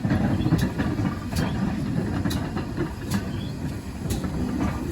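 Railway train moving slowly, with sharp wheel clicks about once a second over a low rumble.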